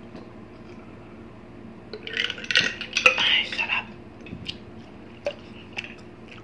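People drinking juice from glasses. About two seconds in comes a loud burst of mouth and glass noise lasting about two seconds, as a glass is finished and set down with a clink. After it, a few scattered light clinks and taps of glassware and dishes.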